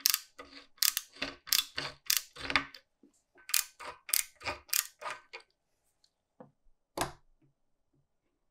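Fluted hand cutter turned in a hole in the steel wrench body: a series of short, sharp metallic scraping strokes at about two a second, pausing briefly around three seconds in. A single click follows about seven seconds in.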